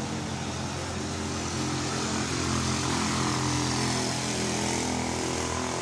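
A motor vehicle's engine running steadily, its hum growing louder about two seconds in and then holding.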